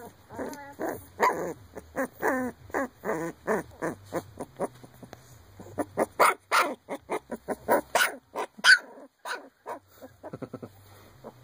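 A 19-day-old Shar Pei puppy giving a quick run of small, high barks and yaps, about three a second. It stops about two seconds before the end.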